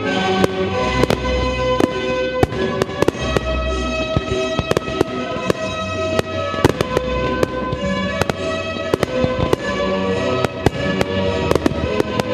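Fireworks display going off: dozens of sharp bangs in quick succession, several close together at times, from rising shells and bursts. Music with long held notes plays under them.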